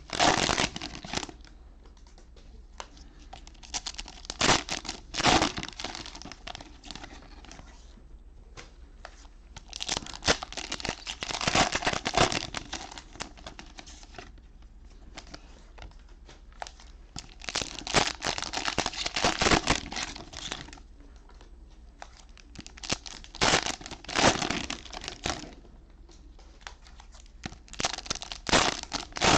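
Cellophane wrappers of Panini Mosaic football cello packs being torn open and crinkled by hand, in about six separate bursts with quieter pauses between them.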